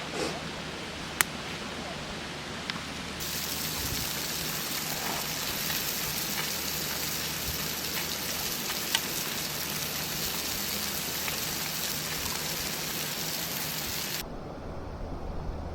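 Food sizzling as it fries in a pan, a steady hiss with small pops that starts suddenly about three seconds in and cuts off shortly before the end. A few sharp clicks come before it.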